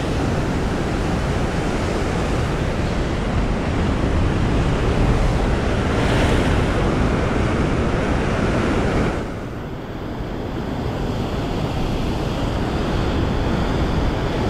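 Surf washing on a beach, with wind on the microphone: a steady wash of noise that swells a little about six seconds in and dips briefly about nine seconds in before building again.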